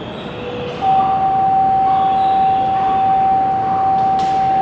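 E2 series Shinkansen horn sounding one long, steady note, starting about a second in and held. It is the warning given as the train pulls out.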